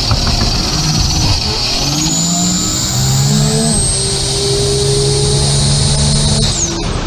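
Racing car engine accelerating hard, its pitch climbing and stepping through gear changes, with a high whine rising above it over the first few seconds; the sound changes abruptly near the end.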